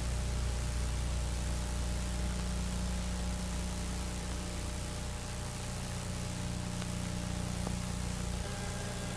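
Steady low electrical hum with a constant hiss over it, unchanging throughout.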